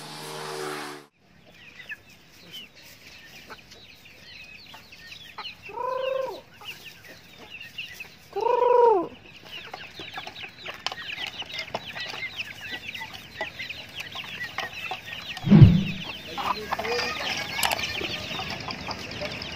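Chicks peeping in a steady stream of short high chirps, with two loud drawn-out hen calls about six and nine seconds in. A loud thump comes about three-quarters of the way through.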